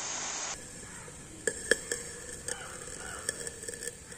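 A steady hiss from a home-made acetylene torch burning at an IV-set needle, fed by calcium carbide in water in a plastic bottle. The hiss cuts off after about half a second and gives way to faint crackling and scattered sharp clicks as the flame is held against an aluminium drink can.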